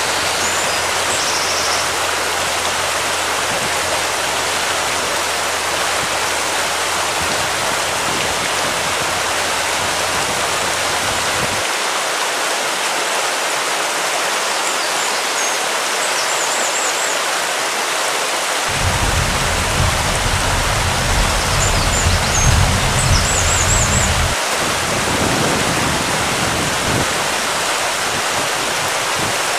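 Steady rushing seaside noise of wind and shallow water at the shoreline. A deeper rumble swells louder for several seconds past the middle, and a few faint high chirps sound now and then.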